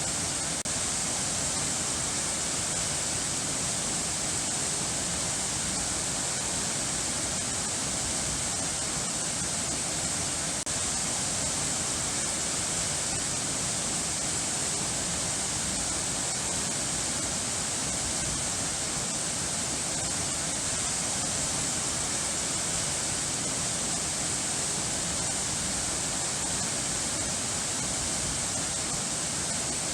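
Running water falling and rushing in a steady, unbroken hiss.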